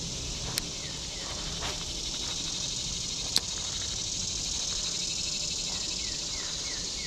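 Insects chirring steadily in a high, fast-pulsing drone. Near the end comes a run of short falling chirps, and there is a sharp click about three and a half seconds in.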